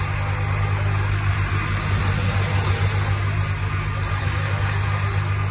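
Electric grinder running steadily with a strong low hum, regrinding a burnt carbide lathe insert by hand.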